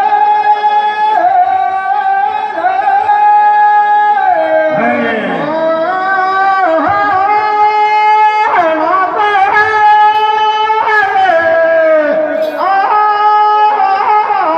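Teja gayan, Rajasthani folk devotional singing: amplified male voices drawing out long held notes, sliding and bending between them.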